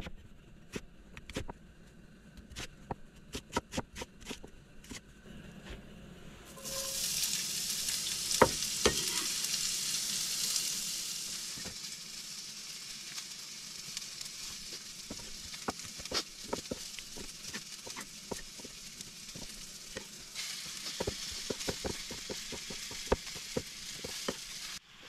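Knife chopping a red onion on a wooden cutting board in a run of quick taps. About six and a half seconds in, a hot skillet starts sizzling loudly as the onion goes in. The sizzle then keeps on more quietly under more knife taps on the board as raw chicken breast is sliced.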